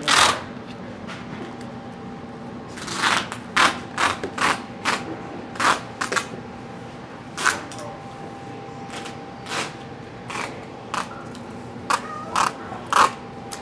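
Workshop handling noises: a series of short, irregular taps, clicks and rustles from a plastic mixing cup, a plastic roller tray and fiberglass cloth being handled on a metal work table.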